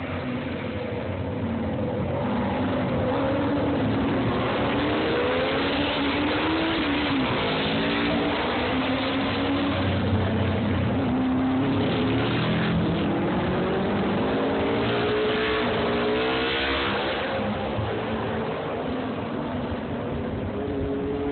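Racing motorcycle engines revving hard on a road-race course, their pitch climbing and dropping again and again as the riders change gear, with several bikes overlapping around the middle.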